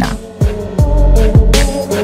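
Background music: a beat of deep bass notes that drop in pitch, about twice a second, under a few held higher notes.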